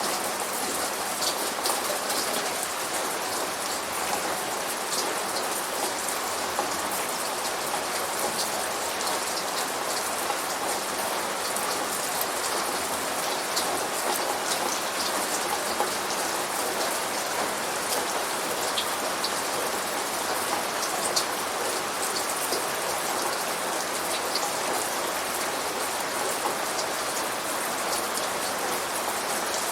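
Steady rain: an even hiss with many individual drops ticking on a hard surface throughout.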